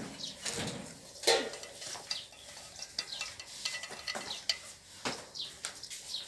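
Wooden chopsticks scraping and knocking against a stainless steel frying pan while stirring food in a little hot oil, with a light sizzle. The loudest knock comes about a second in.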